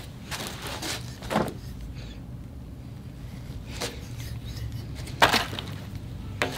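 Metal hand tools being handled at a tap set in a threaded hole: a few scattered clicks and knocks, the sharpest a little past five seconds in, over a low steady hum.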